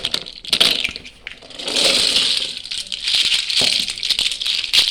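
Toy alphabet blocks rattling and clattering against one another as they are handled, with a few separate clicks at first and then longer spells of rattling, from about two seconds in and again near the end.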